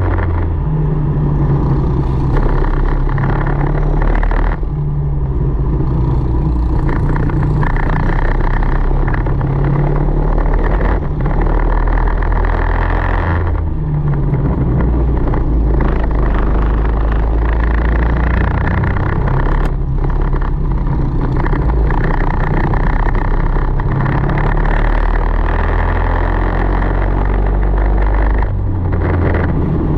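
Tillotson 225 single-cylinder four-stroke kart engine heard onboard at racing speed. Its note rises and falls as it accelerates out of corners, with a few brief dips where the throttle is lifted.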